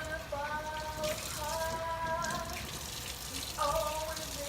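Kitchen tap running into the sink, with a voice singing a tune in long held notes over it; the notes pause about midway and return near the end.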